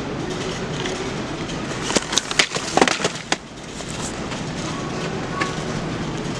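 Steady hum of a supermarket aisle, with a short run of sharp clacks and knocks about two to three seconds in, like goods or a shopping cart rattling.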